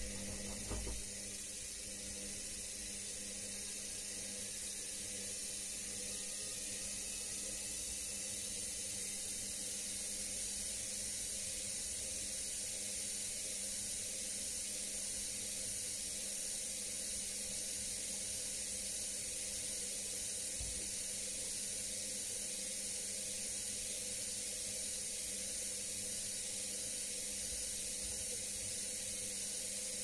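Front-loading washing machine with its drum at rest, water flowing through it with a steady hiss over a faint steady hum.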